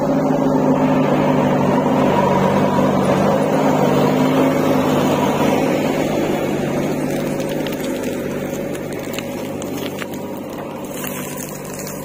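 JCB 3DX backhoe loader's diesel engine running steadily while the machine works, growing gradually quieter through the second half.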